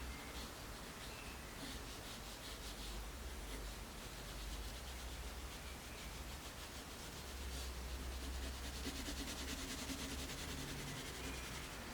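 Soft 5B graphite pencil scratching and shading on printing paper in quick repeated strokes, busier and louder from about eight seconds in.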